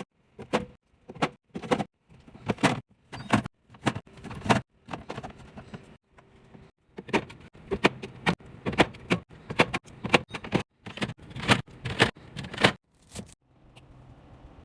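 Repeated knocks and clatters of containers and packaged food being set down and handled while a fridge is filled and organised, roughly two a second, with a quieter stretch about six seconds in and again near the end.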